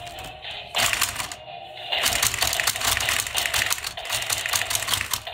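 Toy boxing robots' plastic punching mechanism clattering rapidly as the two fighters trade punches, with a short burst about a second in and then steady clatter from about two seconds in until just before the end.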